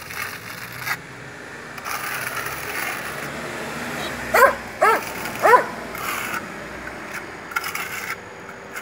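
A dog barks three times, about half a second apart, a little over four seconds in. Underneath is the soft scraping of a steel plastering trowel smoothing a lime finish coat on a concrete pillar.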